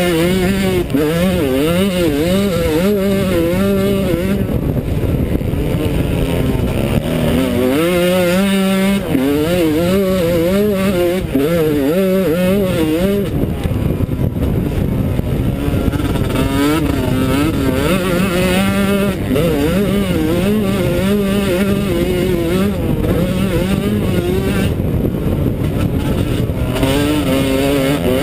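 Yamaha YZ125 two-stroke single-cylinder motocross engine racing, its revs rising and falling constantly as the rider works the throttle through the track, heard from a helmet-mounted camera.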